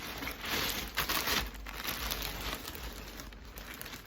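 A pile of plastic fidget toys being handled, rustling and crinkling. It is busiest in the first second and a half, then quieter.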